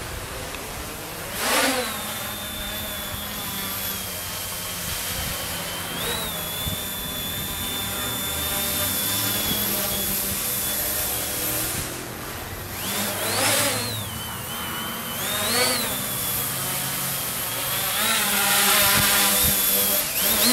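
Tricopter's three Turnigy NTM Prop Drive 28-26 1350KV brushless motors and propellers whining in flight, the pitch wavering with throttle corrections. The sound surges louder about a second and a half in and several times in the second half.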